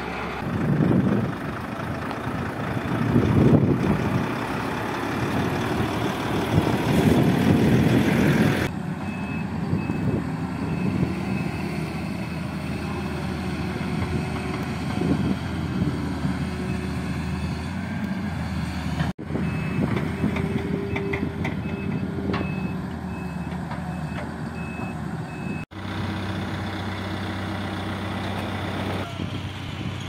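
Heavy diesel trucks and construction machines running, the engine noise swelling louder a few times in the first third. A reversing alarm beeps in two short spells, and the sound changes abruptly several times at cuts between machines.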